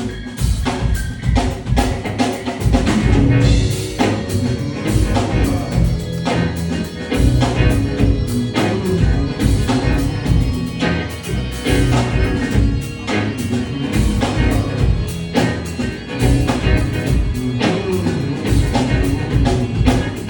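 Rock band playing live: an instrumental passage with a full drum kit and a heavy bass line, no vocals.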